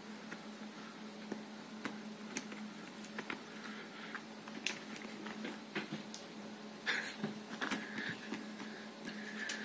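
A Bengal cat pawing and pouncing at in-ear headphones on a duvet: bedding rustling with scattered light clicks and taps, busiest about seven seconds in and with a louder rustle near the end. A steady low hum runs underneath.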